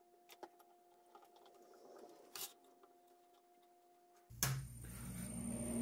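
A few faint clicks as the lathe's tool rest is set, then about four seconds in the wood lathe switches on and starts spinning up, its whine rising in pitch.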